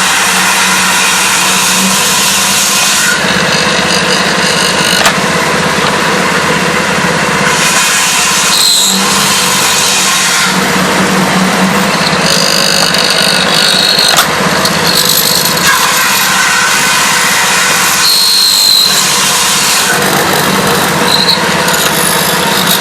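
Electric wood-drilling and mortising machine running: a steady motor hum under a rasping cutting noise that swells and eases every few seconds as the bit works into the wood, with a few brief high whines.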